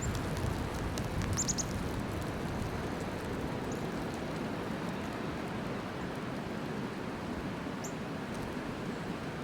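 Steady wind noise of a snowstorm with a few short, high bird chip notes over it: three quick chips about a second and a half in, and single chips near the start, about four seconds in and near eight seconds.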